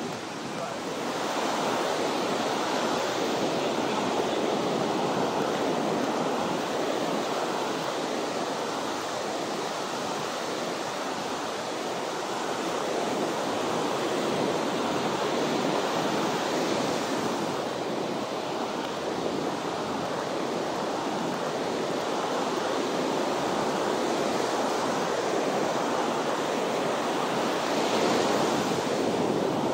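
Ocean surf breaking and washing up on the beach: a steady rush of waves that swells louder now and then.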